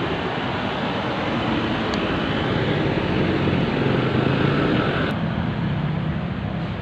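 A motor vehicle's engine passing by, building to its loudest about four seconds in and then fading, over steady traffic noise.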